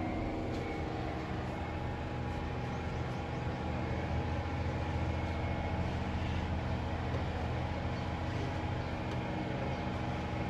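An engine running steadily at a constant speed, a continuous even hum with no revving.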